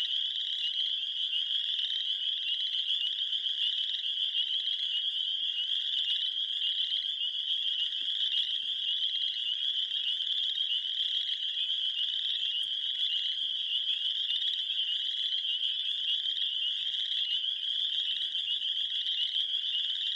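A dense, steady chorus of high-pitched trilling calls, many animals calling at once without a break.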